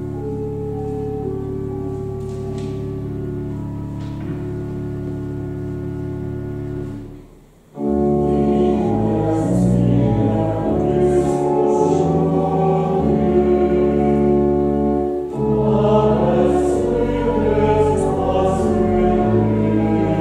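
Church organ playing a hymn introduction in sustained chords, breaking off briefly about seven seconds in. The congregation then sings the hymn verse with the organ.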